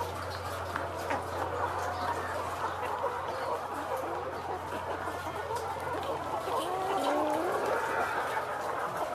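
A large flock of caged brown layer pullets, about four months old and not yet laying, clucking and calling all together in a dense, overlapping chorus, with some drawn-out sliding calls near the end. A low steady hum underlies the first part and fades out about two-thirds of the way through.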